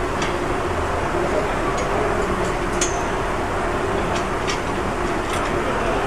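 Steady background rumble with a faint low hum, and a few faint clicks as the baler's mesh-wrap loading bar is handled.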